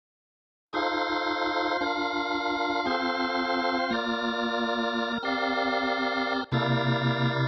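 Organ voice of a Yamaha PSR-SX900 arranger keyboard playing sustained chords that change about once a second, starting after a moment of silence; a deep bass note comes in near the end.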